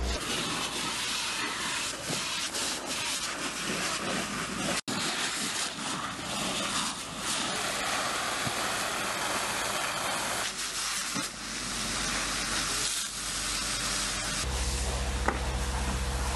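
Fire hose water jet hissing as it sprays onto smouldering construction debris, with steam hissing off the burning pile. The hiss drops out for an instant about five seconds in, and a steady low hum joins it near the end.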